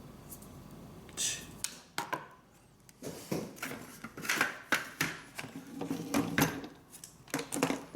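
Small tools and hardware being handled on a work surface: irregular clicks, knocks and light clatter. They begin about a second in, pause briefly, then come thick and fast.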